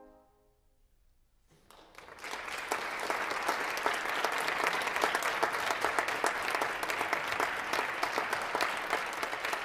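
The final brass chord's echo fades into a short silence, then the audience starts applauding about a second and a half in, swelling quickly to steady clapping.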